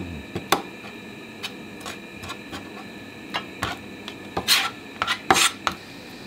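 Kitchen knife scraping and tapping on a plastic cutting board while filleting horse mackerel: scattered light taps and scrapes, with two longer, louder scrapes about four and five seconds in.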